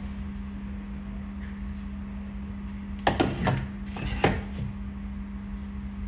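A machine's steady hum, with two short bursts of sharp clicking and clatter about three and four seconds in.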